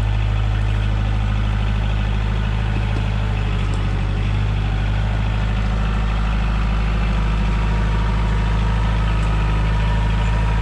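Engine idling steadily: an even, unchanging low hum.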